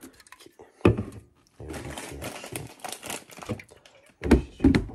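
Items being handled and packed, with rustling and small clattering clicks and a few sharp knocks. The two loudest knocks come close together near the end.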